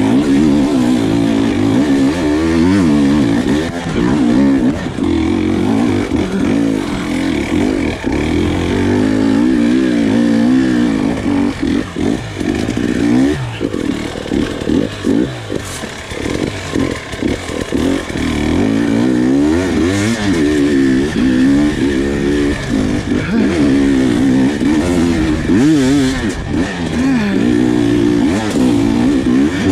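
Husqvarna TE300 two-stroke dirt bike engine revving up and down continually as it is ridden off-road, its pitch rising and falling with the throttle, with a stretch of quick on-off throttle blips about halfway through.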